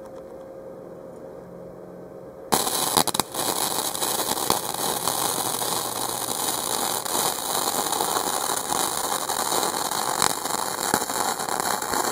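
A Harbor Freight Easy-Flux 125 flux-core welder running .030-inch wire on thin stainless steel exhaust pipe: the arc strikes about two and a half seconds in, then burns steadily with a dense crackle and sputter.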